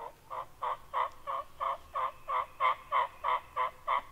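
A run of about thirteen turkey yelps, evenly spaced at about three a second, getting louder toward the end.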